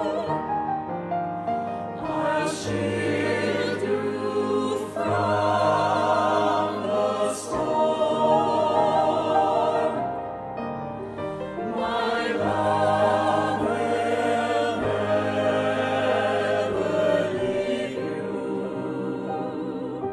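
Virtual choir of mixed men's and women's voices, recorded separately and mixed together, singing a slow choral anthem in held notes with vibrato, over a sustained low note.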